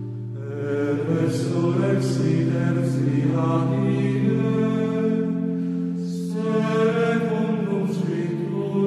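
Slow devotional song: a voice chanting long held notes over sustained, droning chords.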